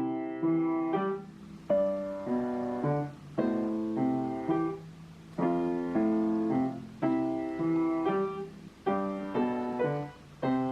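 Piano music: a slow run of chords, each struck and left to fade, one about every second.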